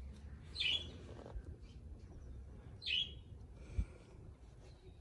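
A songbird giving short, downward-sliding chirps, twice about two seconds apart, over a faint low rumble, with a single low thump after the second chirp.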